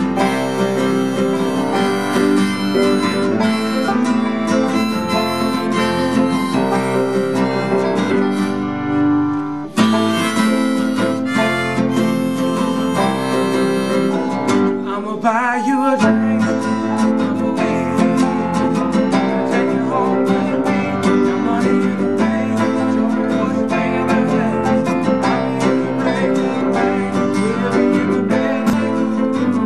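Instrumental break of a country-bluegrass song: a strummed acoustic guitar with a harmonica played from a neck rack, holding long notes over the strumming.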